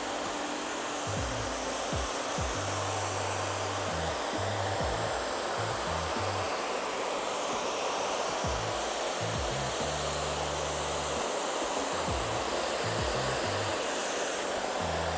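Dyson hair dryer with a diffuser attachment blowing steadily, a constant rush of air, over background music with a stepping bass line.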